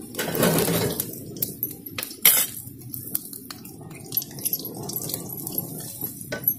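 Iron ladle stirring and scraping garlic and ajwain seeds frying in oil in an iron kadhai, with short clicks and metal-on-metal clinks, a sharp one about two seconds in. A louder, lower sound comes near the start.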